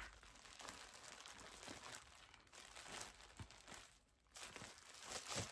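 Faint crinkling of a thin plastic bag as its tied knot is picked loose by hand, briefly stopping about four seconds in.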